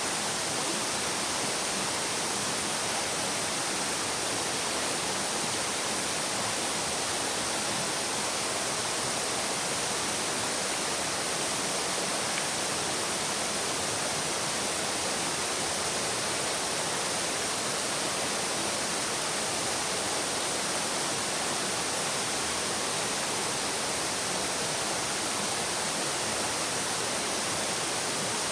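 Shallow stream babbling over stones, a steady rushing and splashing of running water.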